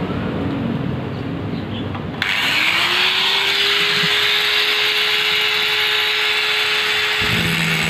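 Electric angle grinder switched on about two seconds in: its whine rises quickly to a steady pitch and it then runs at full speed with a loud hiss.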